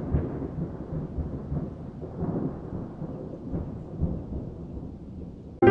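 Muffled thunderstorm ambience, low rumbling thunder over rain, with irregular swells. It cuts off abruptly near the end.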